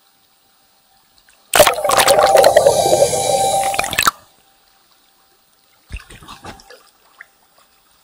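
Water running hard for about two and a half seconds, starting and stopping abruptly. A second, quieter and shorter spell of noise with a few knocks follows.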